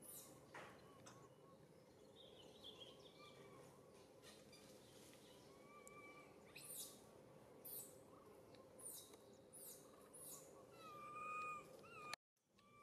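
Faint, thin whimpering calls from an infant macaque, short at first and longer and louder near the end, among several quick high bird chirps that fall steeply in pitch.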